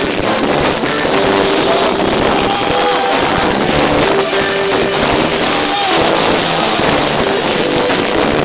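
Live band playing loudly: drum kit, electric bass guitar and keyboard, with a melody of held notes over the band.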